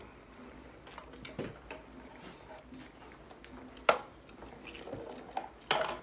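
Light clicks, taps and scuffles of green-cheeked conures moving and pushing about on a small wooden tabletop soccer board, with a sharp knock about four seconds in and another clatter near the end.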